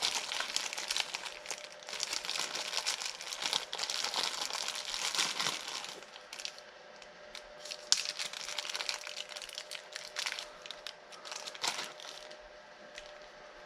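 Plastic packaging crinkling and rustling while pieces of heat-shrink tubing are picked out. It is busy and dense for about the first half, then turns to sparser crackles and clicks.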